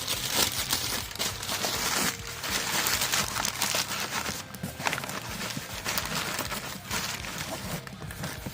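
Packing material being handled: irregular rustling and crinkling with a few light clicks and knocks.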